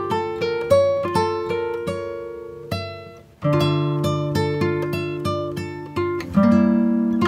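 Background music: an acoustic guitar picking a melody note by note, with a short gap a little over three seconds in before it picks up again.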